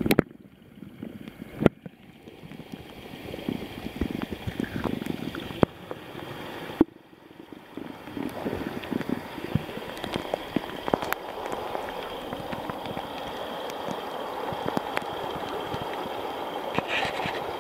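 Water gurgling and sloshing around a camera held underwater and at the surface of a clear warm spring, with small crackling clicks and several sudden changes as the camera moves in and out of the water. It settles into a steadier gurgle about eight seconds in.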